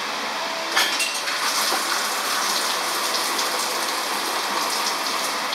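Metal hand tools and engine parts clinking as work goes on in an open engine bay, over a steady rushing hiss. The sharpest clink comes about a second in.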